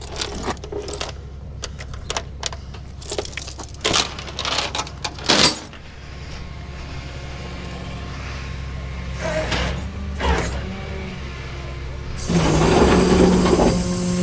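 Keys jangling and a quick run of clicks and rattles over the rollback tow truck's engine running at idle. About twelve seconds in, the engine gets louder and rises in pitch as it is revved.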